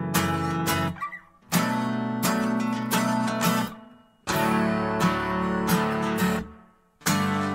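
Background music: acoustic guitar chords strummed in phrases of about three seconds, each breaking off briefly before the next begins.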